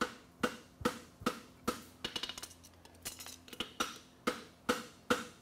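Farrier's hammer striking a red-hot steel horseshoe on the anvil face, forging the branch of the shoe: a steady run of blows about two a second, each with a short metallic ring.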